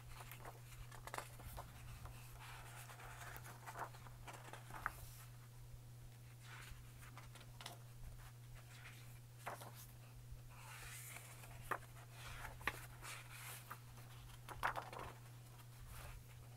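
Pages of a large 128-page hardcover photo book being turned by hand: faint, irregular paper rustles and flicks, over a steady low hum.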